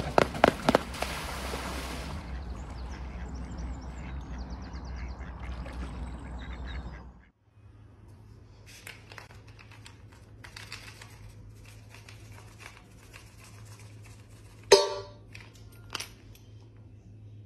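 A swan's feet slap the water in a quick run and it splashes along the surface for several seconds, then the sound cuts off. After that, dry dog food drops into a stainless steel bowl with a single sharp, ringing clink, and a smaller clink follows about a second later.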